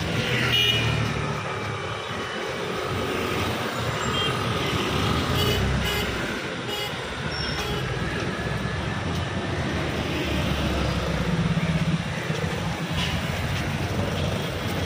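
Busy city street traffic: vehicle and truck engines running past, with short horn toots.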